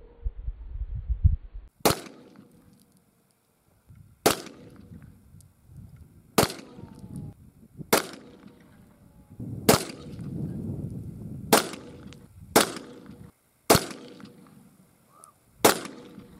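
Nine gunshots from a homemade 9mm handgun with a barrel made of plumbing pipe, spaced one to two and a half seconds apart, each a sharp crack with a short echo. A low rumble runs under the first two seconds before the first shot.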